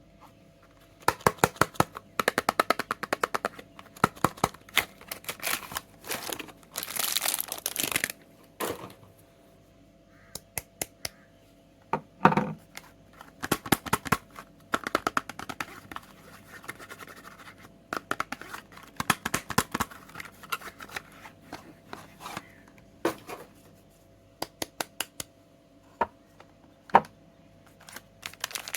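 Soap packaging being unwrapped by hand: bursts of crinkling and tearing wrapper, full of sharp clicks, broken by short pauses.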